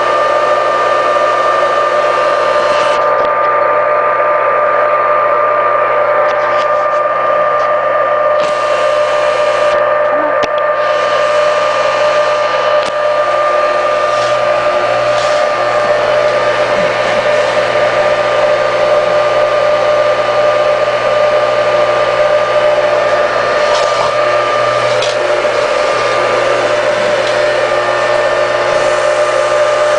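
Sears Craftsman 1 HP capacitor-start AC motor (model 113.1247) running steadily with a constant hum and whine, running well with no change in speed.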